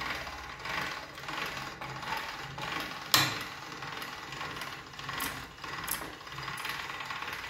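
Hand-cranked stainless-steel pasta machine rolling a sheet of dough: the gears and rollers rattle and click steadily as the crank turns, with one sharper click about three seconds in.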